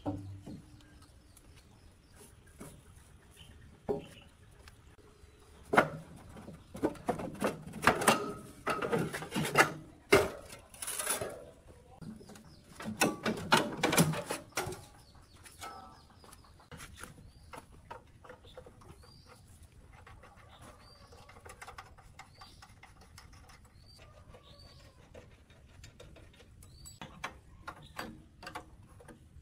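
Irregular knocks, clinks and scraping as hand tools pry and scrape packed sawdust and rust out of a rusted Hitachi 3-in-1 woodworking machine, busiest in the middle. Small birds chirp in the background, short repeated chirps in the quieter second half.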